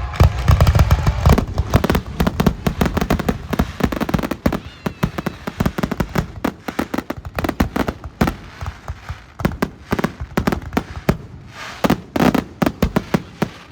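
Fireworks going off in a rapid barrage of sharp bangs and crackling pops, many a second. About eight seconds in they thin out, then a last dense cluster comes just before the end.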